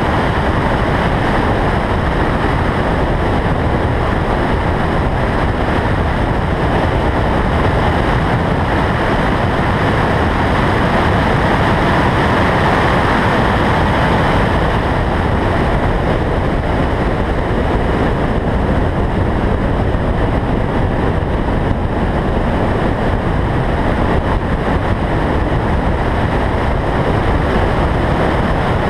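Steady rush of wind and road noise picked up by a camera on a car's roof at track speed, heaviest in the low end. It swells somewhat about halfway through.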